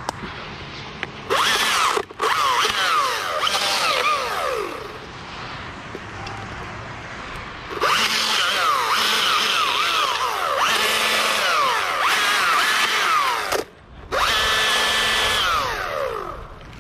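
Chainsaw running in four cutting bursts into dead fir wood, the longest about six seconds. Its pitch drops again and again as the chain bites and the engine bogs under load.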